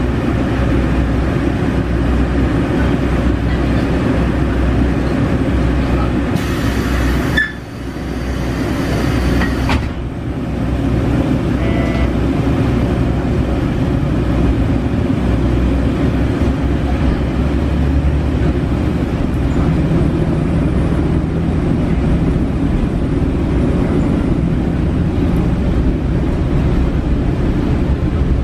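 JR Shikoku KiHa 40 diesel railcar heard from inside the passenger cabin: a steady low drone and rumble of the car under way. About seven seconds in there is a few seconds of hissing, with a short drop in loudness.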